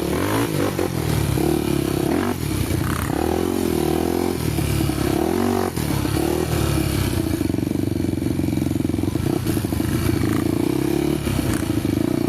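Honda motorcycle engine running on a dirt trail ride, its pitch rising and falling with the throttle for the first several seconds, then holding fairly steady.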